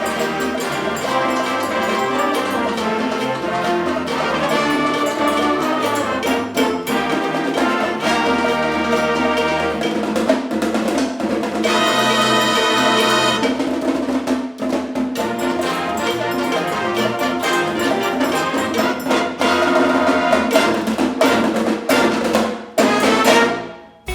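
Band music with brass and percussion, including snare drum, playing loudly and dying away about a second before the end.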